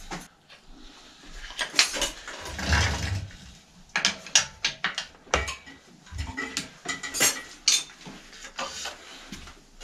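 Irregular metallic clinks and clatter of hand tools and bicycle parts being handled, with a short stretch of rummaging about three seconds in.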